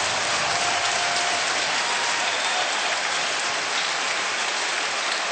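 Large ice hockey arena crowd applauding and cheering, a steady dense wash of clapping noise.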